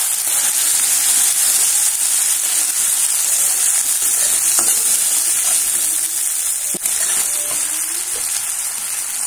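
Freshly ground tomato and spice paste sizzling in hot oil in a kadai, with a steady hiss as it is stirred with a metal spatula that taps the pan a couple of times.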